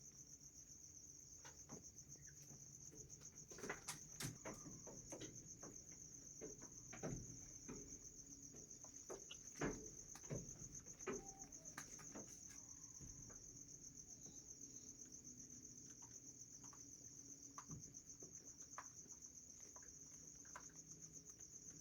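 Faint, steady, high-pitched insect trill, cricket-like, with scattered faint clicks and taps.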